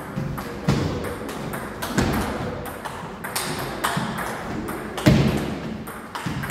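Table tennis rally: the celluloid ball clicks sharply off rackets and table in a quick, steady run, echoing in a large hall, with a few heavier thuds among the hits.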